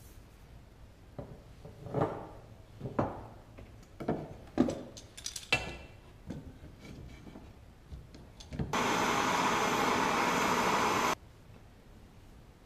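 Copper pipe knocking and scraping against a wooden workbench, several separate clunks with a short metallic ring, while a hand tool is fitted onto the pipe. Later a loud, steady hiss lasts about two and a half seconds and cuts off suddenly.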